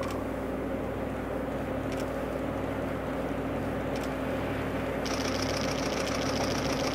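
DD51 diesel locomotive's twin V12 diesel engines running as it hauls a freight train, a steady drone growing slowly louder as it approaches. A steady high hiss joins about five seconds in.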